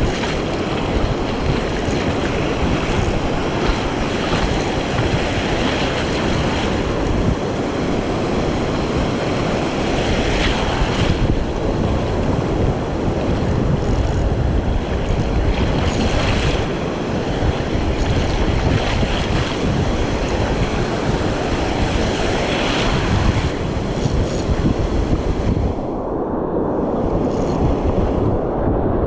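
Ocean surf washing and breaking against a rocky shoreline, a steady rush with a few louder swells, mixed with wind buffeting the microphone.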